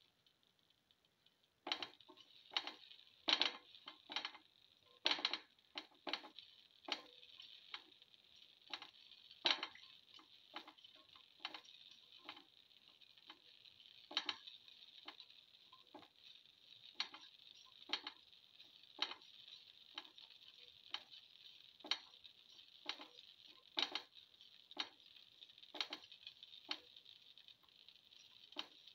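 Shallots frying in shallow hot oil in a pan: a steady high sizzle with irregular sharp pops and crackles of spitting oil. The pops come thick and loud in the first several seconds, then settle to about one a second.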